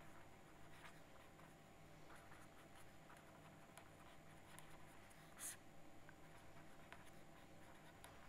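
Faint scratching of a felt-tip marker writing on paper in short strokes, one stroke louder about five seconds in, over a faint low hum.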